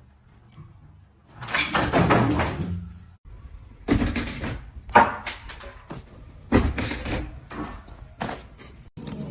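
A noisy rush lasting about a second and a half, then about five sharp bangs, unevenly spaced over the next four and a half seconds.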